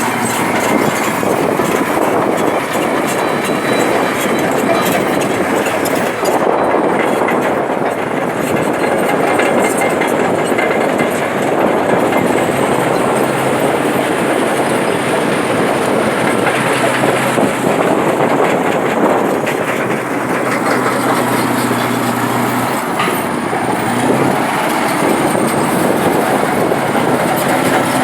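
Excavator running and working: a steady, loud engine noise with many small knocks and clanks and, at times, a faint high wavering squeal.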